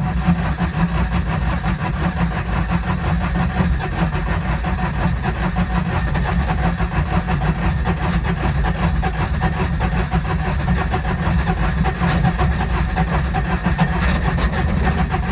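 Intimidator diesel UTV's starter cranking the engine hard and steadily for about fifteen seconds, a hard start. The owner blames the long crank on a bad Bendix drive and suspects weak glow plugs.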